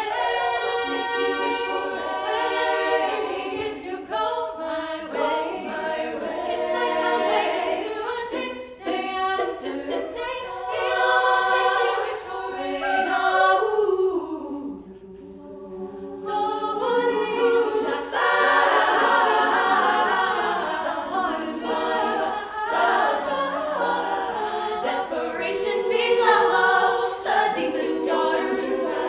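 All-female a cappella group singing in close, layered harmony with no instruments. The voices drop away briefly about halfway through, then come back fuller.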